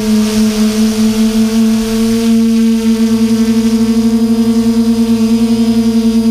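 Electric motors and propellers of a Xugong V2 Pro multirotor drone, heard from its onboard camera: a steady, loud hum with a fast, even pulsing beat. The pitch rises slightly a little over two seconds in.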